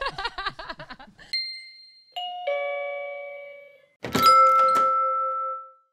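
A few seconds of group laughter breaking off into an animated logo sting: single bell-like chime notes ring out one after another, then a loud hit carries a long held tone that fades away.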